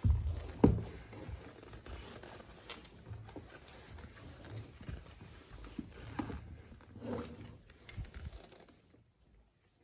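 Handling noise from unboxing a tablet: cardboard box and packaging being knocked and rustled, with a loud thump about half a second in and irregular knocks and rustling after it. It dies down near the end.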